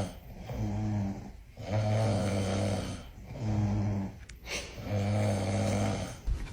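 Rhythmic snoring: four pitched snores, each about a second long and evenly spaced.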